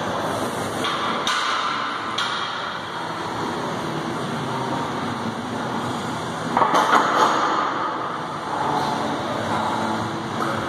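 Steady gym background noise during a heavy barbell bench press attempt, with a louder burst of noise about seven seconds in.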